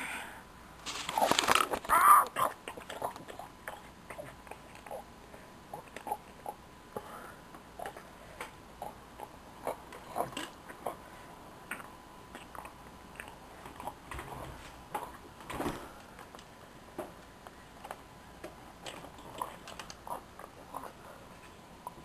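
Chewing and biting sounds for a toy dragon eating another toy: a loud burst of munching about a second in, then a long run of small irregular chewing clicks.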